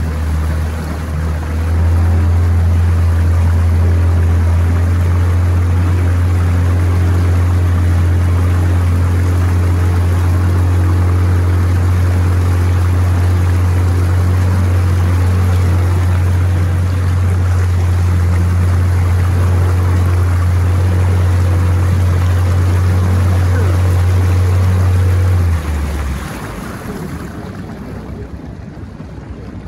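A boat's motor running steadily under way, a deep even hum over a rushing noise of water and wind. Near the end the motor note drops away and the sound becomes quieter, as the boat slows.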